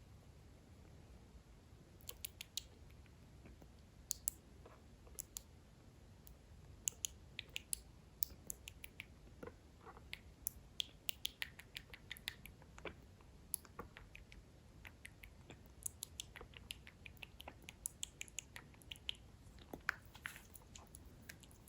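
A rabbit's teeth clicking and crunching: many sharp, irregular, rapid clicks.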